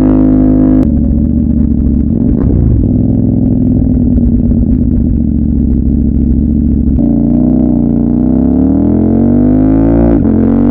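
CFMOTO 800MT parallel-twin engine running through an aftermarket Yoshimura full-system exhaust, giving a deep, steady note. About seven seconds in, the sound changes abruptly, and the engine speed dips and then climbs steadily toward the end.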